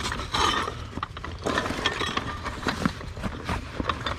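Hands rummaging through a pile of discarded household items and boxes: irregular clinking, clattering, scraping and rustling as things are shifted.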